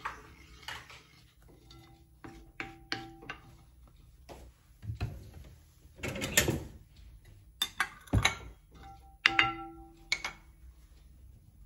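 Scattered knocks and clatter of kitchen handling around a clay pan and wooden spoon. A few of the knocks ring briefly with a short clear tone, and there is a longer clatter about halfway through.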